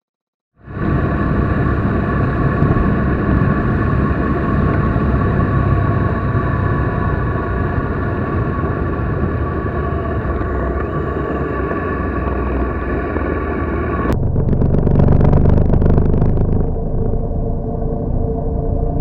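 Motorcycle running at road speed, its engine and the wind noise heard through the bike-mounted camera's microphone. It comes in suddenly after a short silence, and the sound changes abruptly about fourteen seconds in, getting briefly a little louder.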